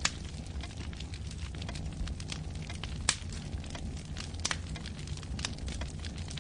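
Wood fire burning in a fireplace: crackling with scattered sharp pops over a low, steady rumble. The loudest pops come right at the start and about three seconds in.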